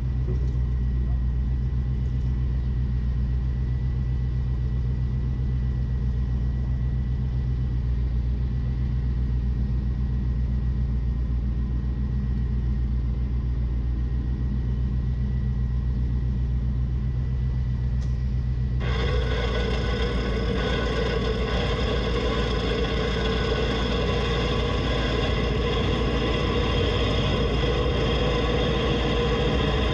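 Off-road vehicle's engine idling steadily while parked. About two-thirds of the way through, a steady whine of several pitches cuts in abruptly and holds: an electric winch reeling in its line.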